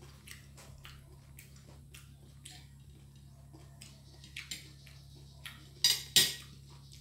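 A fork clicking lightly against a plate while eating, with two louder clinks close together about six seconds in, over a steady low hum.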